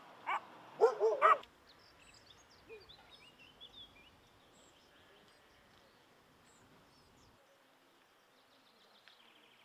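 An animal barks three times in quick succession in the first second and a half. Then faint bird chirps over quiet outdoor ambience.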